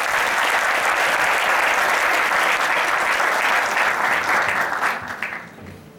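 Audience applause in an auditorium, many people clapping steadily, dying away about five seconds in.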